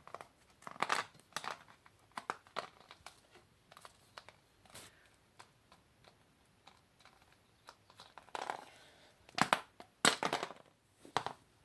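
A phone's screen being pried apart by hand: its adhesive peeling and plastic and glass crackling, with irregular creaks and sharp snaps, several loud cracks near the end.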